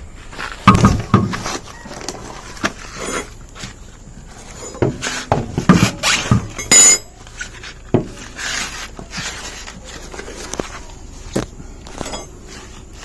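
Irregular knocks, clinks and scrapes of a spare wheel being handled and lined up on a car's wheel hub, with loud thuds about a second in and around five to seven seconds in.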